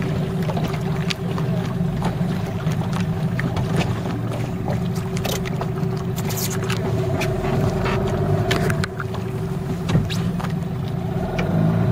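Small outboard motor running steadily at low revs, a constant low hum, with a few scattered light clicks and knocks.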